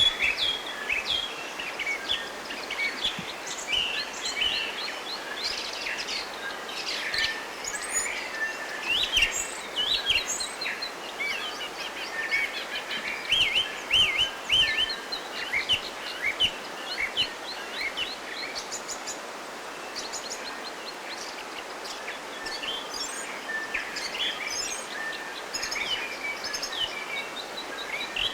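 Several songbirds chirping and singing at once, with many short quick notes and trills, over a steady background hiss.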